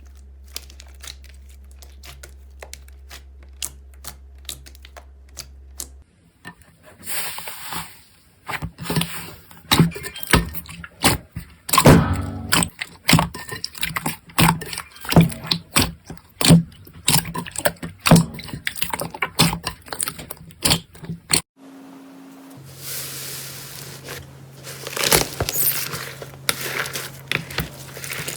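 Slime being pressed, poked and stretched by hand: a string of irregular sticky clicks, crackles and pops. The sounds are faint and rapid at first and grow louder and fuller about seven seconds in.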